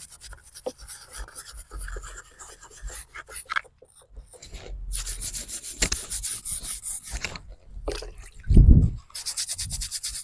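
A scrub brush scrubbing a stone headstone in quick back-and-forth strokes, with a brief pause partway through. A single low thump comes about three-quarters of the way in.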